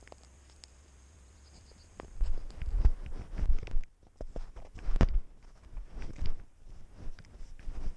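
A cat's paws thumping and rustling in deep snow, heard close up from a camera worn on the cat. It starts faint with a few light clicks, then from about two seconds in comes an irregular run of footfalls as the cat bounds, with one sharper thump about five seconds in.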